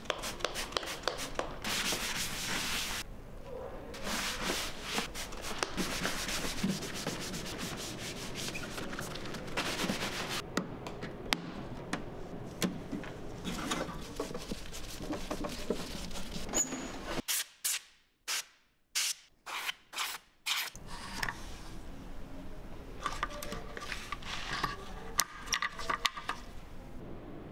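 Scrubbing on the black plastic case of a Macintosh TV, with spray-bottle spritzes near the start, and then a long screwdriver working the case screws and handling clicks. Past the middle there is a quieter stretch broken by a few sharp clicks.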